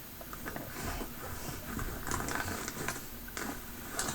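Soft rustling and scattered light clicks of gear being handled and taken out of an everyday-carry bag.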